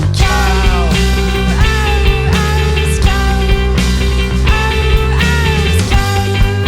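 A rock band playing psychedelic rock, with drums keeping a steady beat about twice a second under a sustained bass line. A lead line's notes slide down in pitch again and again.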